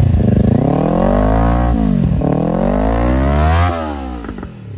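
Kawasaki Ninja 400 parallel-twin engine revved twice through an aftermarket slip-on silencer, with a bassy note. Each rev rises in pitch and falls back, and the engine sound drops away near the end.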